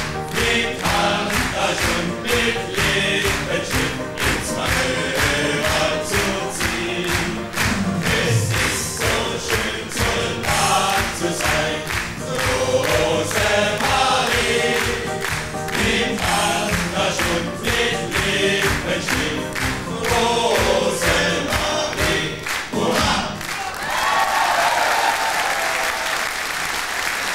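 Male singing group singing a carnival march-song with live music, and the audience clapping along in a steady beat. About 23 seconds in the song ends and the hall breaks into sustained applause.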